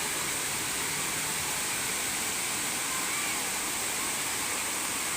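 Waterfall falling: a steady, even rush of water noise.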